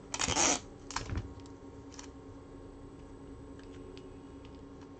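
Electrical tape pulled off the roll in a short rasping rip, then a second shorter rip about a second in, followed by faint ticks of the tape and wire being handled as a wire joint is wrapped to insulate it.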